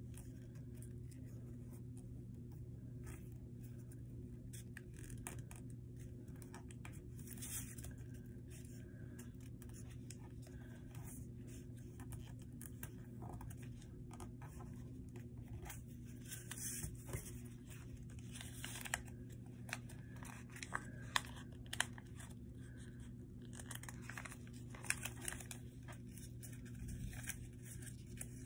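A sheet of paper being folded and creased by hand: scattered rustles and crinkles, with a few sharper crackles in the second half, over a steady low hum.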